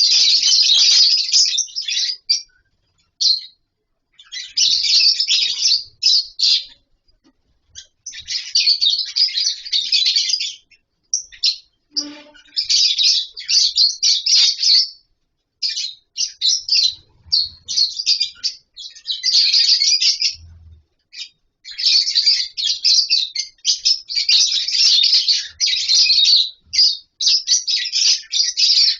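A colony of lovebirds chattering in bursts of rapid, high-pitched chirps a second or few long, separated by short pauses. A brief knock sounds about twelve seconds in.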